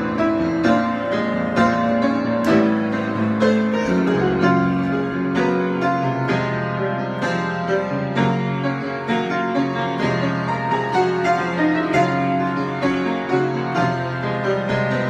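Solo piano improvisation: a steady stream of struck notes over held chords.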